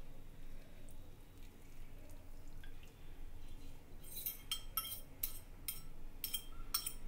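Saffron-soaked milk trickling faintly from a ceramic bowl onto rice. From about four seconds in comes a run of sharp clinks, two or three a second, as a metal fork scrapes and taps the bowl to empty it.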